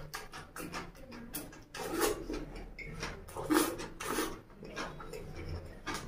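Chewing and slurping of chow mein noodles eaten by hand: a run of irregular wet mouth noises, one every half second or so.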